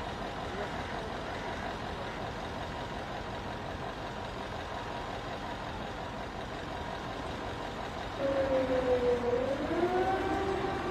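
Steady background bustle of a crowd and vehicles, then about eight seconds in a louder siren starts, its pitch dipping slightly, then rising and holding a steady tone.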